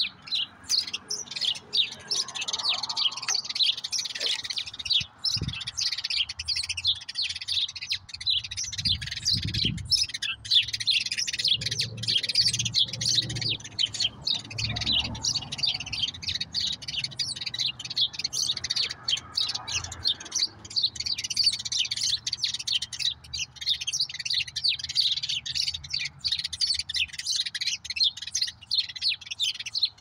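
Finches and other small songbirds chattering: a dense, continuous run of quick high chirps and twitters.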